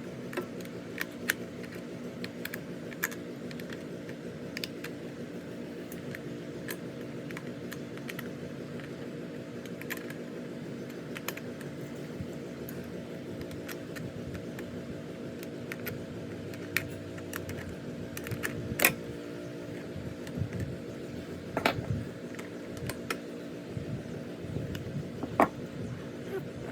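Scattered small metallic clicks and taps of hand tools and engine parts being handled, a few louder knocks near the end, over a steady low hum.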